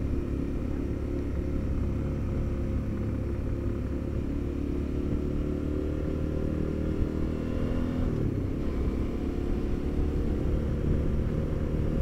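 Suzuki V-Strom 650's V-twin engine running steadily under the rider on the road, its note dipping briefly and picking up again about eight seconds in.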